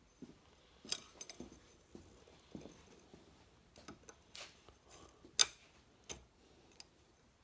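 Scattered light metal clicks and clinks of steel clutch plates being handled and seated in the forward clutch drum of a John Deere 310D reverser, with a sharper clink about five and a half seconds in.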